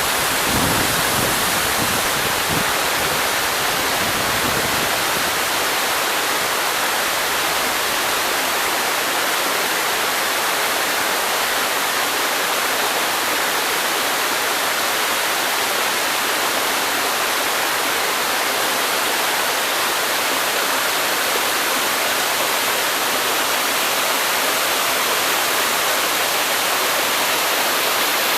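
Waterfall pouring steadily, an even, unbroken sound of falling water. A low rumble underneath fades out over the first several seconds.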